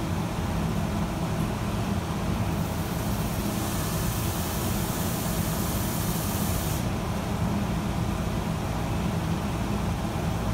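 A steady low mechanical hum, with a hiss of spray that starts about two and a half seconds in, lasts about four seconds and cuts off sharply.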